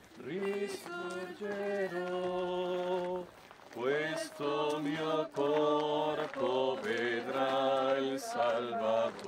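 Slow chant-like singing with long held notes. There is a short break a little over three seconds in, after which the singing continues at a lower pitch.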